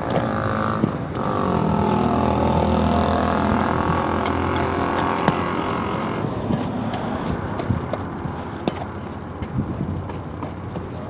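A motor vehicle's engine running close by, steady for about the first six seconds before it fades away. Under and after it, the scraping and clicking of a flat iron spatula stirring roasting sand in a metal corn-roasting pan.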